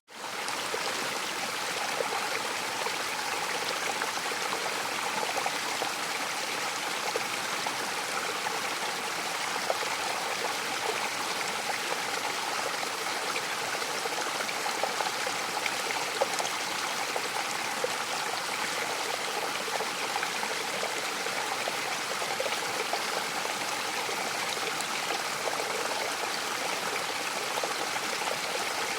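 Mountain waterfall rushing steadily, a dense splashing hiss with small irregular spatters. The sound briefly dips almost to silence at the very start and swells back within half a second, a seam in the looped recording.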